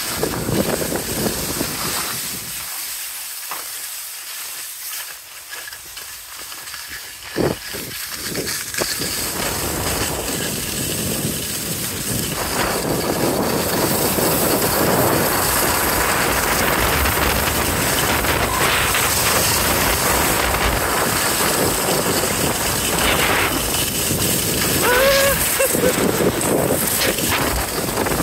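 Skis running downhill over hard-packed groomed snow: a steady scraping hiss, softer for a few seconds near the start and louder and even from about twelve seconds in.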